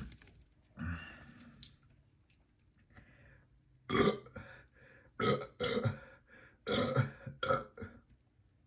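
A man burping several times in quick succession, the loudest burps coming in the second half, from the carbonation of the seltzer water he has just drunk.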